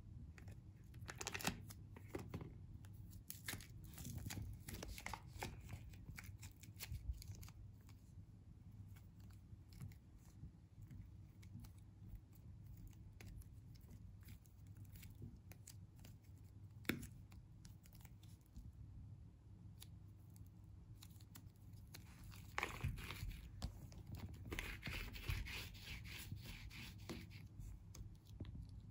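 Soft yellow plasticine being pulled apart and stretched by hand: faint sticky tearing and squishing with scattered small clicks, growing denser for a few seconds near the end.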